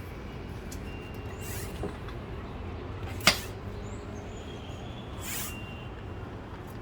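Bicycle pump inflating an inner tube: a hiss of air about every two seconds with each pump stroke, and a sharp click about three seconds in.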